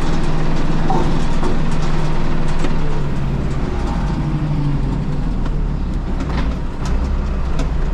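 Steyr 9094 tractor engine running steadily while driving a Trioliet feed mixer wagon, with a few scattered clicks over the hum.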